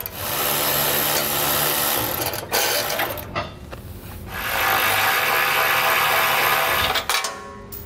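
Cordless power ratchet running in two spells, about two seconds and then about three, backing out the 10 mm bolts that hold the exhaust heat shield. A couple of short knocks come in the pause between them.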